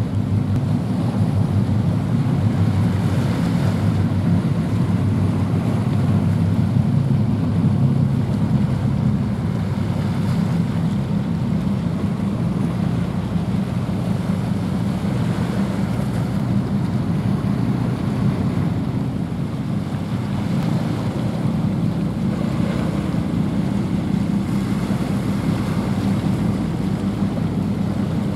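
Steady low drone of a passing RORO cargo ship's engines, with water washing along its hull.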